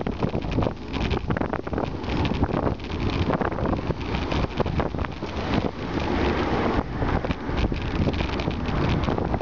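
Wind buffeting the microphone on a moving bicycle, with frequent knocks and rattles as the bike rides over a rough, bumpy path.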